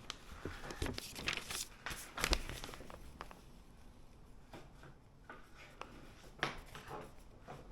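Quiet tabletop sounds of colouring in paper: scattered light taps and clicks with faint scratching on the sheet.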